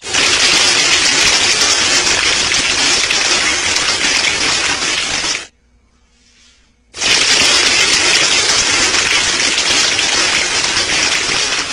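Homemade soda-bottle airsoft machine gun firing on compressed air from an air-compressor blowgun: a loud, continuous blast of air and pellets streaming out at the target. It fires in two long bursts of about five seconds each, with a pause of about a second and a half between them.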